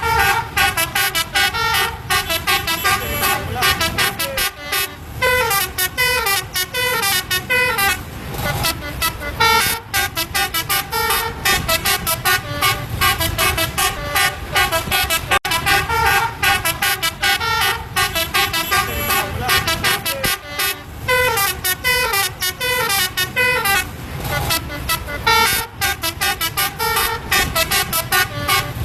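Bus telolet horn, a set of multi-tone air horns, playing a fast tune of quickly stepping, overlapping notes. The tune starts over about halfway through.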